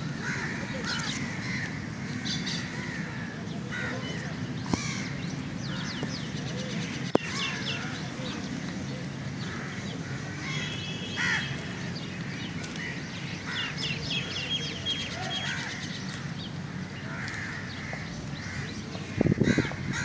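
Birds calling over and over, with quick chirping trills higher up, above a steady low hum of background noise. A short louder burst comes just before the end.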